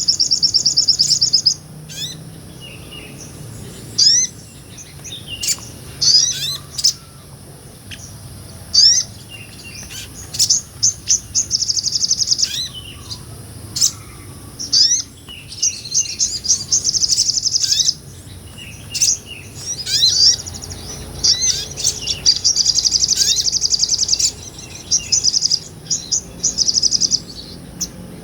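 Sogon, a small sunbird, singing: fast, high buzzing trills lasting a second or more at a time, alternating with short sharp chirps and whistled notes. The longest trill runs about two seconds, beginning near the middle of the stretch.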